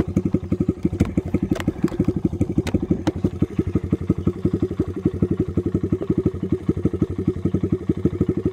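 Dirt bike engine idling steadily, a fast even putter of about a dozen beats a second, with a few light clicks in the first few seconds.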